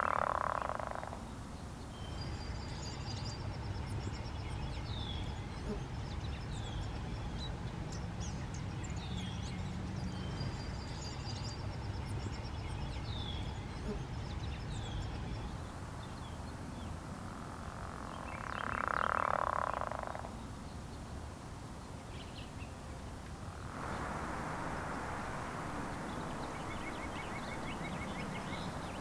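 Pickerel frogs calling: a creaking, growl-like snore about a second and a half long, heard once at the start and again about two-thirds of the way through. Short high chirps sound between the calls.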